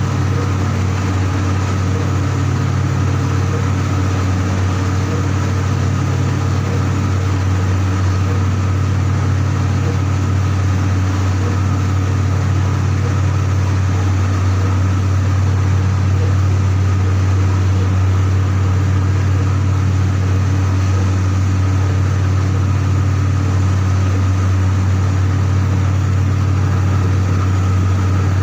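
Heavy machinery running steadily with a strong, even low hum and fainter steady tones above it, unchanging throughout.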